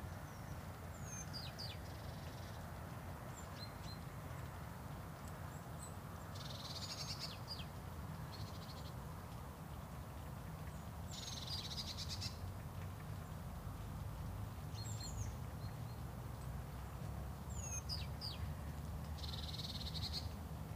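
Birds calling at dawn: scattered short high chirps, and every few seconds a buzzy, rapidly pulsed trill about a second long, over a steady low background rumble.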